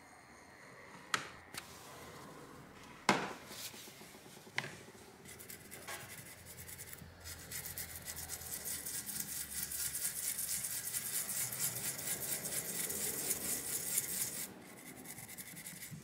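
Fast back-and-forth scrubbing of a swab across a graphics card's bare GPU die, wiping off old thermal paste. A few light clicks come first, then the scratchy rubbing runs steadily for about ten seconds and stops near the end.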